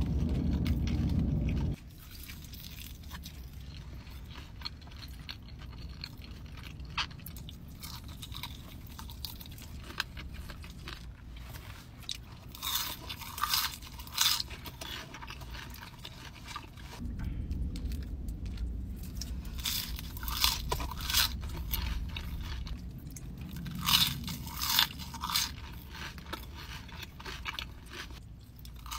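Close-up eating sounds: crispy-coated Korean fried chicken wings crunching and being chewed, with clusters of loud, crackly crunches about halfway through and again in the last third. A low rumble stops about two seconds in.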